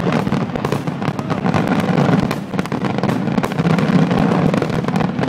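Aerial fireworks shells bursting in a dense, rapid barrage of bangs and crackles.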